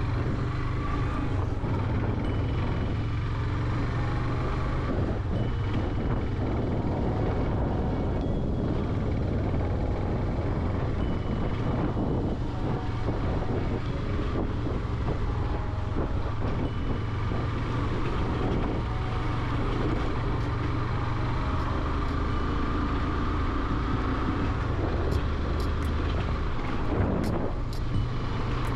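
Yamaha motorcycle running steadily while being ridden, its engine a constant low rumble under road and wind noise, with a few light clicks near the end.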